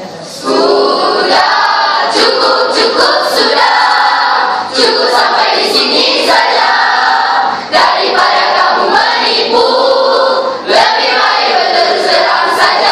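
A mixed chorus of teenage students' voices singing together in unison as part of a choral-speaking piece, in phrases with a short break about every three seconds.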